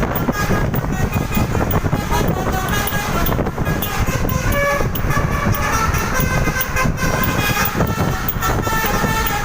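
Indonesian bus 'telolet' musical horn playing a string of short, changing notes, over a steady low rumble of road and wind noise.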